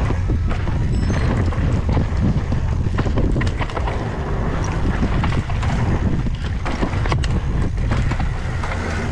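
Wind buffeting the mountain bike's handlebar-mounted camera microphone on a fast dirt-trail descent, with many short clicks and knocks from the bike rattling over the rough ground.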